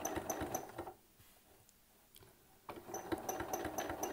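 Domestic sewing machine stitching fast with a spring-loaded free-motion quilting foot, whose spring gives a short high squeak at every stitch, about six a second. It stops about a second in and starts again after a pause of nearly two seconds. The squeak comes from the foot's spring, not the machine: the spring is dry and wants a drop of oil.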